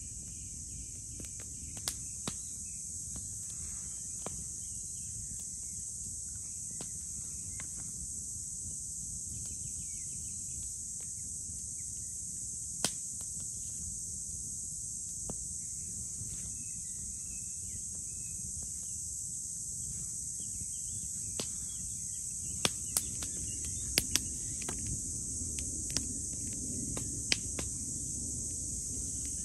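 Steady high buzz of crickets and other insects with a few faint bird chirps. Scattered sharp clicks and taps of hands and a knife working at a wooden stump while food is prepared, several close together near the end.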